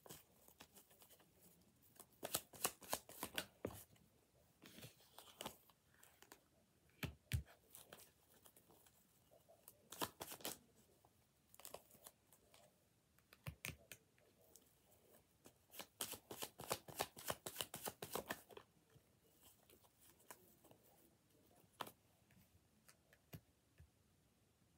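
Tarot cards being shuffled and handled: quick, faint runs of card flicks and riffles in several short bursts of a second or two, the longest about two-thirds of the way in.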